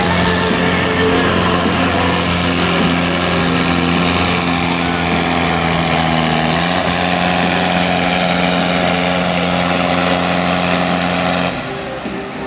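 Volvo BM tractor's diesel engine pulling flat out under the load of a weight-transfer sled, a steady loud drone whose pitch steps up slightly a little past halfway. About a second before the end the engine sound drops away abruptly as the pull ends.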